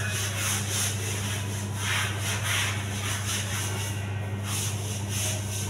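Quick, even rubbing strokes of scrubbing on a ceramic tile floor to lift cement and paint stains, over a steady low hum.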